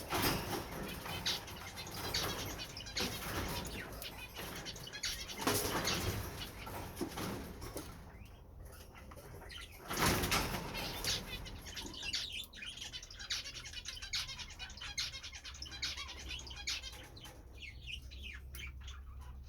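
European goldfinches fluttering their wings and chirping in quick twittering notes, with louder bursts of flutter about five and ten seconds in.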